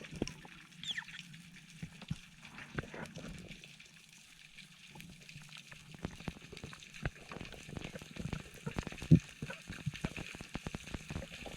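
Underwater ambience through a camera housing: water movement with many scattered short clicks and crackles, and an occasional louder knock, the loudest about nine seconds in.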